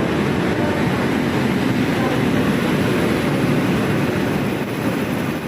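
Passenger train running, a steady low rumble with no breaks.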